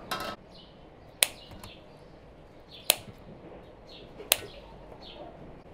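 A brief scrape, then three sharp metallic clicks about a second and a half apart as a kitchen knife knocks against a stainless steel colander while tomatoes are cored. Small birds chirp in the background with short falling calls.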